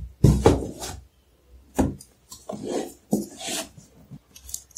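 Cardboard laptop box handled by hand: slid out of its shipping carton and set down on a wooden floor, a string of scraping rubs and a few short knocks.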